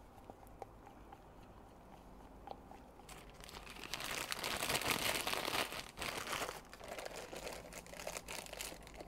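A clear plastic bag crinkling and rustling in gloved hands, loudest from about three to six seconds in, then in shorter spells. The first few seconds are quiet apart from a few faint clicks.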